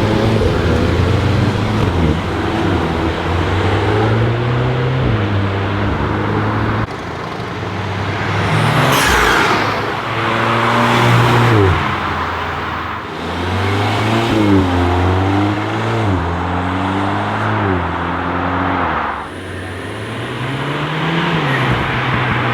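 Volkswagen Golf 8R turbocharged four-cylinder accelerating hard through the gears, its pitch climbing and dropping back at each upshift, over several separate runs.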